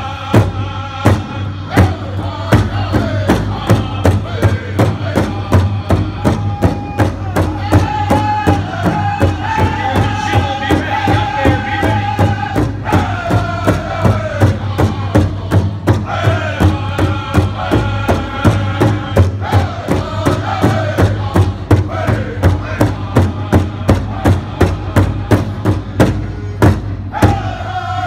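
Powwow drum group singing a southern-style contest song, voices together over a steady unison beat on a big drum, about two strokes a second.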